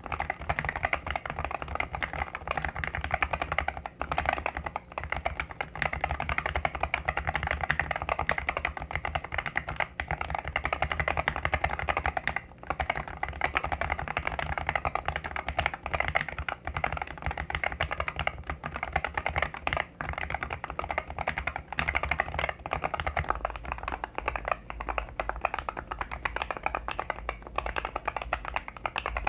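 Fast, continuous typing on an Irok NA87 PRO magnetic-switch keyboard with its stock 35 g switches, not yet lubed or foam-dampened. About 23 seconds in, the sound changes as typing on the same board after lubing and adding dampening foam begins.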